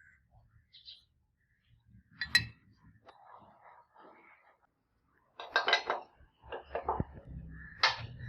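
Metal tools and parts clinking and knocking against each other in a few separate sharp clinks with a short ring, including a quick cluster past the middle.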